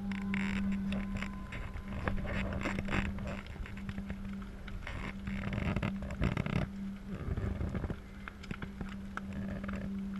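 Crowd voices and shouts around a large bonfire of burning timbers, with sharp cracks and pops from the fire, over a steady low hum.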